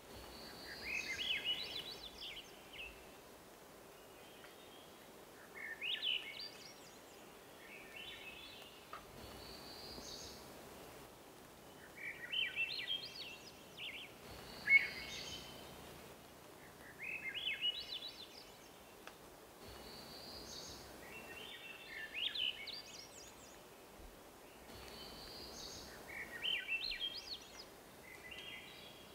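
Cougar kitten calling to its mother: a group of high, chirping whistles that comes again roughly every four to five seconds over a faint steady hiss, with one sharp, louder chirp about halfway through.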